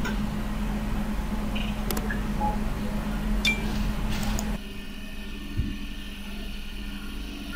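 Room tone: a steady low electrical hum with a few faint clicks, one with a short high clink about three and a half seconds in. The background noise changes abruptly partway through.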